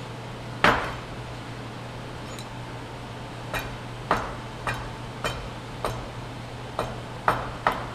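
Double rod end hydraulic cylinder being knocked end-down onto a piece of wood on the floor, about ten sharp taps with the first the loudest, driving its new seals all the way into place.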